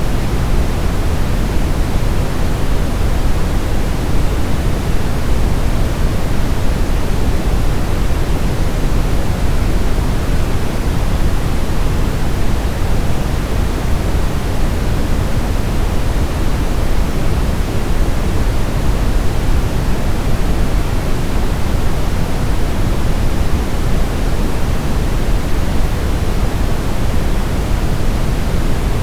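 Steady generated sleep-aid noise: an even, unchanging rushing hiss, heavier toward the bass.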